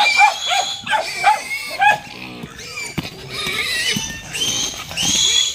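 Piglets squealing shrilly as they are handled and weighed. In the first two seconds there is a quick run of short calls, about three a second.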